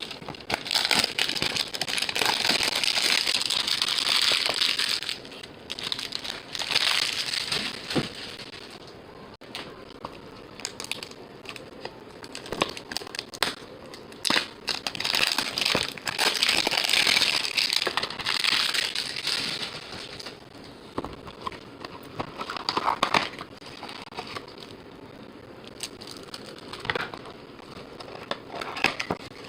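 Packaging of 2019 Donruss baseball card boxes and packs being torn open and handled: crinkling and crackling wrappers in stretches of several seconds, with quieter gaps and a few sharp clicks.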